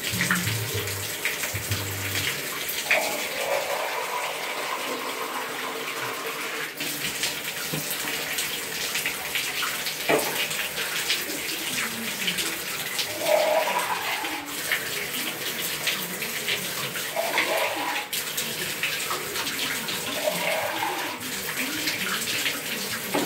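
Bathtub tap running steadily, water splashing in the tub while a cat is washed in it.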